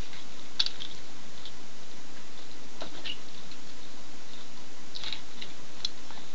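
A few light clicks and taps, about half a second in, near the middle and near the end, over a steady hiss.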